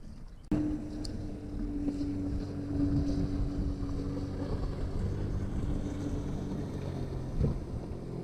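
An engine hum that starts abruptly about half a second in and then runs steadily.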